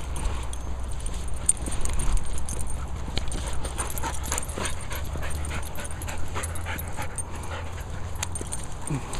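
Sealyham Terrier giving a short whine near the end, among quick irregular clicks and taps over a steady low rumble.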